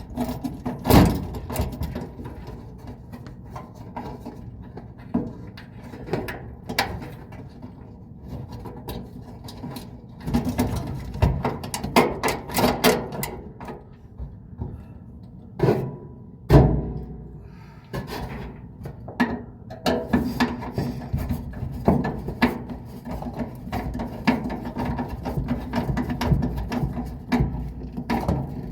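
Irregular knocks, clicks and rattles of hands and tools working on parts inside a clothes dryer cabinet. The sharpest knock comes about 16 seconds in.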